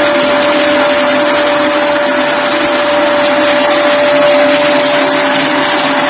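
Vacuum dust extractor running steadily: an even rushing noise with a constant whine.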